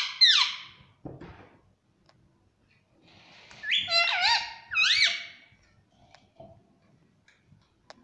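Indian ringneck parakeet calling: a loud high call ends under a second in. About four seconds in comes a quick run of three or four high calls that rise and fall in pitch.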